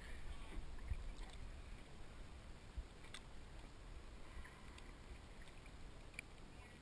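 Calm sea water lapping gently close to the microphone, with a low rumble and a few faint clicks.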